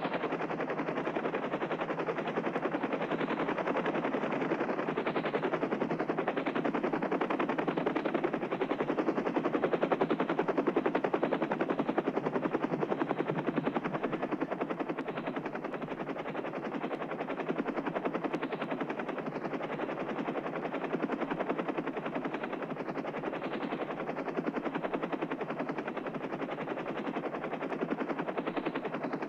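Helicopter rotor sound with a fast, steady chop, swelling slightly about ten seconds in.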